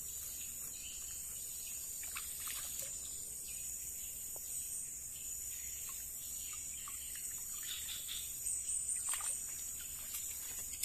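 Steady high-pitched drone of insects in the jungle, with a few faint splashes as a collapsible umbrella fish trap is drawn up through a shallow creek.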